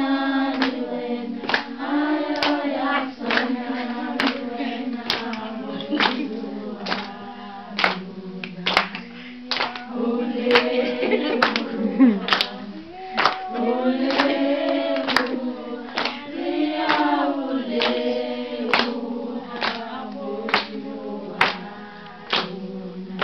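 A group of women singing a Sesotho hymn of thanks unaccompanied, in several voices, to steady hand clapping about one and a half claps a second.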